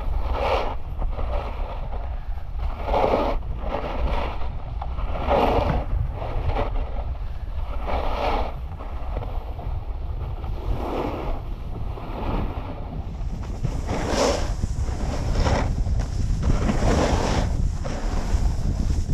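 Snowboard edges scraping over groomed snow in repeated swishing swells every second or two as turns are linked, over a steady low rumble of wind on the microphone.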